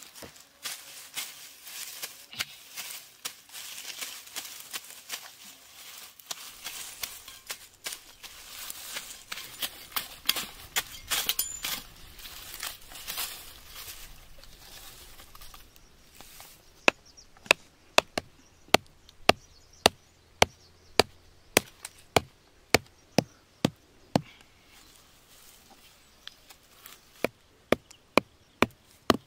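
Dry grass and leaves rustling and scraping as ground is cleared by hand. About halfway in this gives way to a steady run of sharp wooden knocks, a little under two a second: a peeled wooden stake being pounded into the ground.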